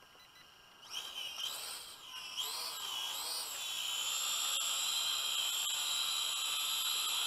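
Syma X5UW toy quadcopter's motors and propellers spinning up about a second in, the high whine rising and falling as the throttle is worked during take-off, then settling into a steady whine as the drone hovers.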